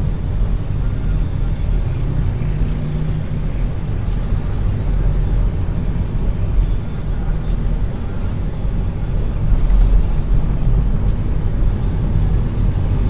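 Steady low rumble of road and engine noise from a moving car in city traffic, swelling a little about ten seconds in.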